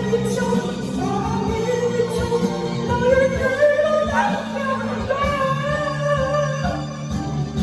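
Music with a singing voice, a wavering sung melody over steady bass notes and a regular beat.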